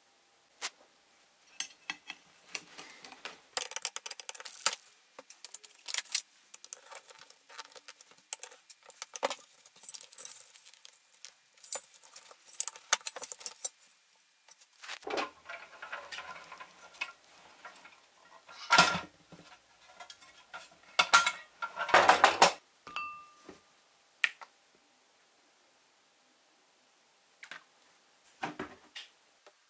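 Small hard objects, likely metal parts and tools, clinking and clattering as they are handled on a workbench. Dense light clicks fill the first half, and several louder knocks with a brief ring come in the second half.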